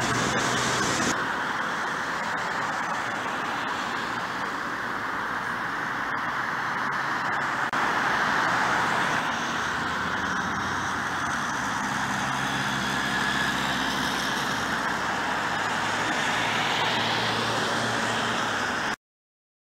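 Street traffic: city buses and cars passing, a steady mix of engine hum and tyre noise. It stops abruptly near the end.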